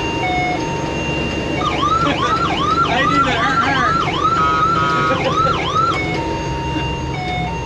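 An electronic siren sounding over a truck engine running: steady tones that switch back and forth between pitches, then from about two seconds in a fast up-and-down yelp, roughly two or three sweeps a second, for about four seconds, before returning to the stepping tones.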